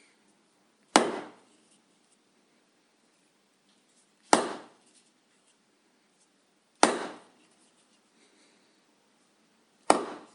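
Rubber hammer striking a piece of wood four times, single blows a few seconds apart, each a sharp knock that fades quickly.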